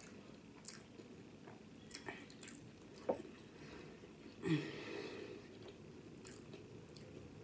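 Close-up chewing of a lobster volcano sushi roll: soft wet mouth clicks and smacks, a sharp smack about three seconds in, and a brief low mouth sound about four and a half seconds in, the loudest moment.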